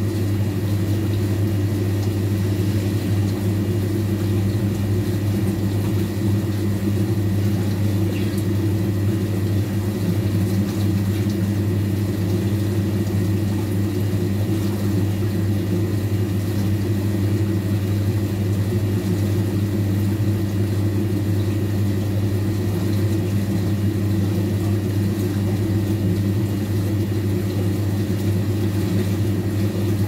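Old washing machine running, a steady deep motor hum over a constant whir, unchanging throughout.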